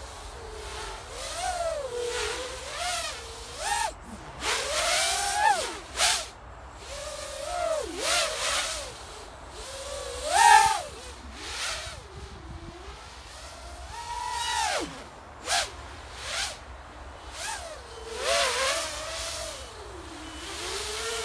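Eachine Tyro99 FPV racing quadcopter in flight: its brushless motors and propellers whine, the pitch sliding up and down with every throttle change. Rushing propeller noise swells several times on the harder punches and close passes, the loudest about halfway through.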